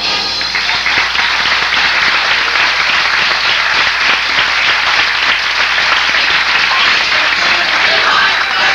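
Audience applauding, steady and fairly loud.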